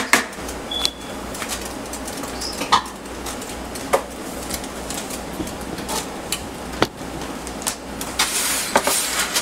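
Kitchen handling noises as a foil-lined baking sheet is carried to the oven and the oven door is opened: a few scattered sharp clicks and taps, and a short rustle near the end.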